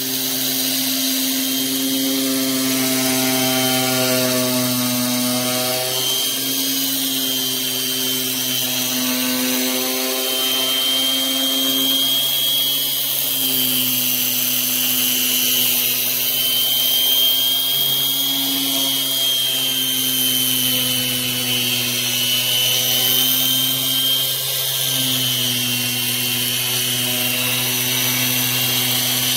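Corded electric polisher running steadily at medium speed with a 1000-grit sanding disc pressed against an oxidized plastic headlight lens. A continuous motor hum with a high whine, its pitch wavering slightly.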